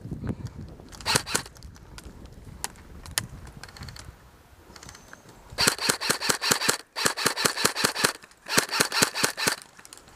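Airsoft guns firing on full auto: a short burst about a second in, a few single shots, then three longer bursts of rapid shots in the second half.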